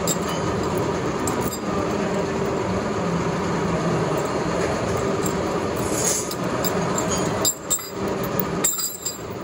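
Workshop machinery running steadily with a steady hum and metal clinking. The noise drops out abruptly twice near the end.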